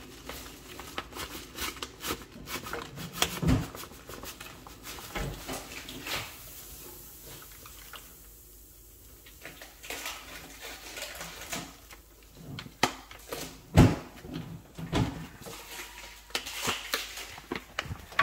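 A plastic bag crinkling as baking soda is shaken out of it into a tray of hot water, with scattered clicks and knocks; the loudest knock comes about 14 seconds in.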